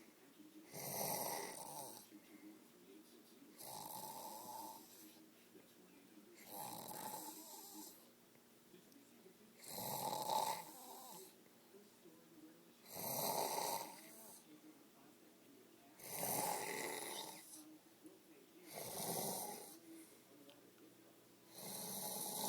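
Heavy, rasping snoring from someone asleep: eight snores, one about every three seconds.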